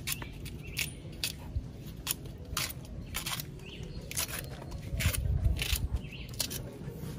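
Kitchen knife slicing okra pods held in the hand, a series of short crisp cuts at an uneven pace of about one to two a second.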